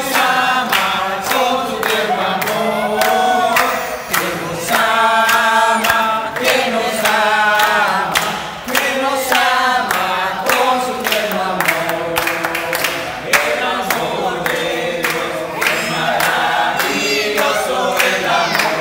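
A group of people singing together in chorus, clapping their hands along in steady time.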